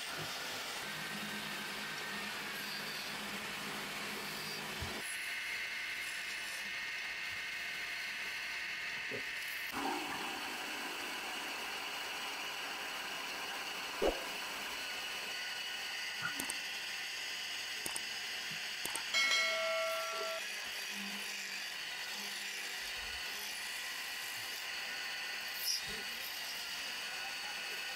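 Electric-motor-driven wood lathe running, with a hand-held chisel cutting a spinning wooden spindle: a steady running sound with faint steady tones, a few sharp knocks, and a short squeal about twenty seconds in.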